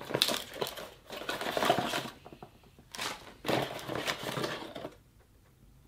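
Crinkly plastic bag and a small cardboard toy box rustling as the contents are pulled out of the box, in two spells of handling that stop about five seconds in.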